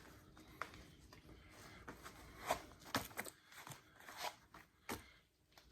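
Stranded 4/0 copper cable being pulled apart from its plastic core by hand: faint crackling with several sharp clicks of wire strands and plastic, bunched in the middle and near the end.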